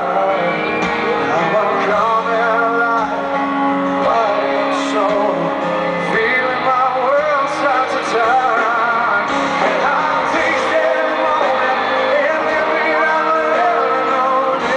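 Live pop-rock song: a male lead singer's voice, wavering in pitch, over a band with guitar and drums, heard from the audience in a large arena.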